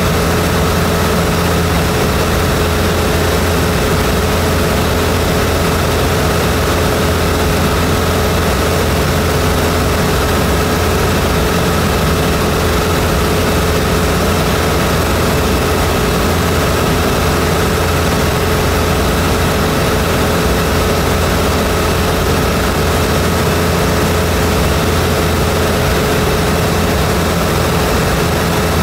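Zenith CH750 light aircraft's piston engine and propeller heard from inside the cockpit in cruise flight: a steady, unchanging drone with no change in power.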